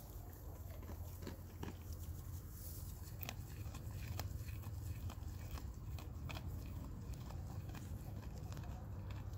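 A goat chewing dry hay close to the microphone: irregular crisp crunches and clicks over a low steady rumble.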